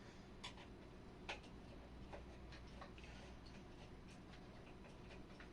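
Faint scattered clicks and taps of wires and small parts being handled while a fire alarm device is wired up, the sharpest about a second in, over a low steady hum.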